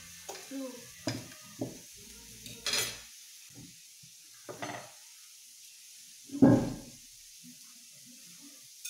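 Meat sizzling faintly on the hot plate of a tabletop raclette grill, with clicks and clatter of utensils and plates. A louder thump comes about two-thirds of the way through.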